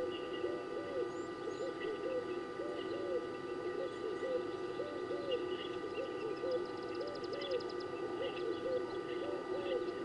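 Doves cooing over and over in an overlapping chorus of low, rounded calls, with scattered small-bird chirps above them and a short rapid trill past the middle.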